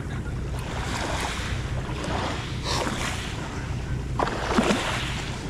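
A steady low boat-engine hum, with small waves washing up on a pebble shore in swells of hiss about a second apart. The loudest wash comes about four and a half seconds in. Wind buffets the microphone.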